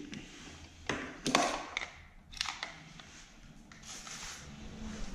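Handling noises: several light clicks and knocks in the first half as meter test leads and a clamp meter are moved and set down, then a soft rustle.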